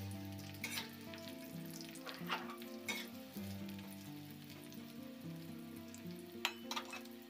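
Tempe strips frying in oil in a wok, sizzling steadily, with a spatula stirring them and clicking against the pan a few times.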